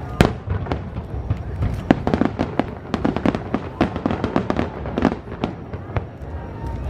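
Aerial fireworks bursting in a rapid, overlapping series of bangs and crackles, with a loud report just after the start, over a steady low rumble.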